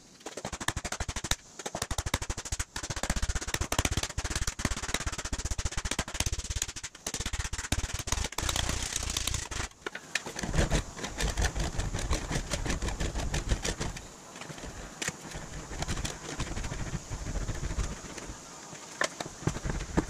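A mallet hammering quickly and repeatedly on an aluminum sheet panel laid over a sandbag, stretching the metal. About ten seconds in the blows thin out into scattered knocks as the panel goes to the English wheel.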